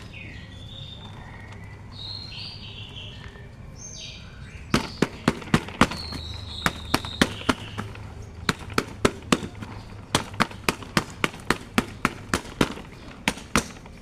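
A long run of sharp clicks, about two to three a second, starting about five seconds in. Birds chirp in the background before it.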